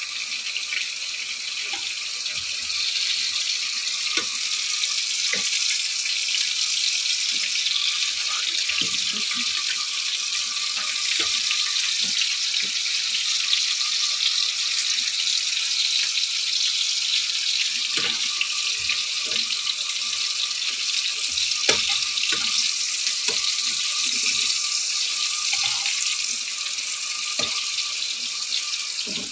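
Potato fries and breaded cutlets frying in hot oil: a steady sizzling hiss with scattered pops and crackles.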